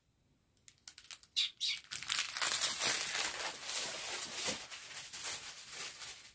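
Small plastic bags of diamond-painting drills crinkling as they are handled and gathered up: a few scattered crackles at first, then continuous crinkling from about two seconds in.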